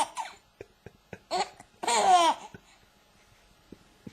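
A young infant's laughter comes in short breathy bursts. The longest is a high, gliding laugh about two seconds in, and the last second and a half is quiet.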